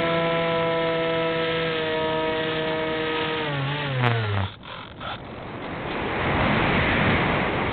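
RC model airplane's motor and propeller heard from an onboard camera, running at a steady pitch, then winding down about three and a half seconds in and cutting out a second later as the throttle is closed. Wind noise then swells over the camera as the plane dives, and eases near the end.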